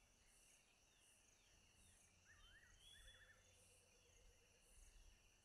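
Near silence: faint rural outdoor ambience with a few soft bird chirps and a faint high pulse repeating about once a second.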